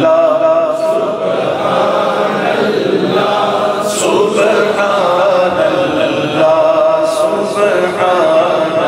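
Unaccompanied chanted singing of a naat, a devotional praise poem, with long held, wavering melodic notes and no instruments.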